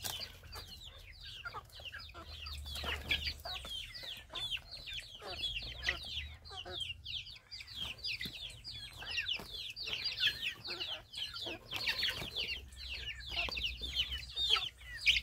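A flock of young chickens and chicks peeping continuously: many short, high, falling chirps overlap one another, with occasional lower clucks mixed in.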